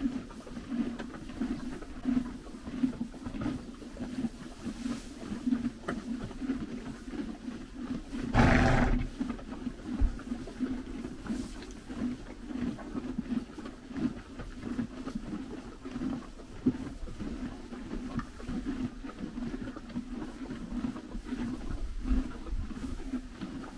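Ponies chewing and pulling at loose dry hay: a continuous, irregular crunching and rustling. About eight seconds in, a short, louder rush of noise stands out.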